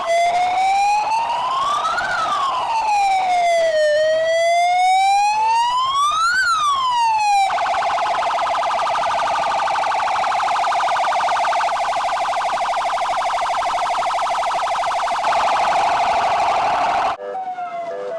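Palestine Red Crescent Society ambulance's electronic siren in a slow wail, its pitch rising and falling about every four seconds. About seven seconds in it switches to a fast warble. Near the end it cuts suddenly to a quieter siren sound.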